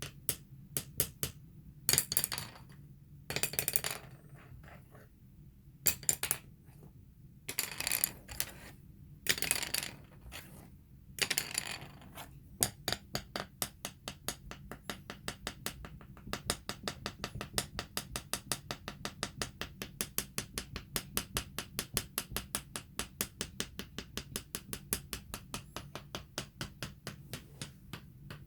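Tapping on a floor. At first the taps are irregular, mixed with a few longer scraping sounds. From about halfway on they become a steady quick run of several taps a second.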